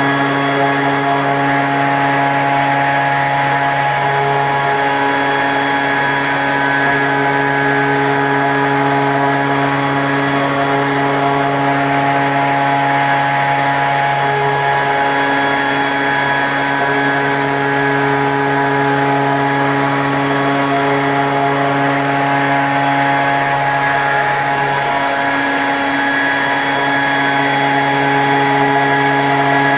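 CNC machine spindle running steadily with a constant pitch while drilling a hole into a river stone; the pitch wavers briefly about four, fourteen and twenty-five seconds in.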